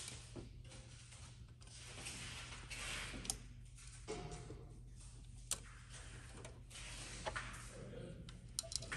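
Faint rustling and handling noises with a few sharp clicks as a silicone intake coupler is worked onto a car's air intake tube, over a steady low hum.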